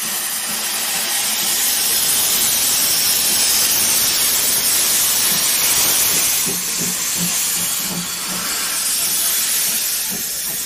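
Steam escaping from a small steam tank locomotive: a loud, steady hiss.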